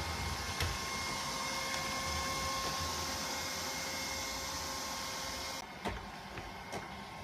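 Neato Botvac D80 robot vacuum running with a steady whine over a rushing noise. About five and a half seconds in, the sound drops abruptly to a quieter running, with a few light knocks.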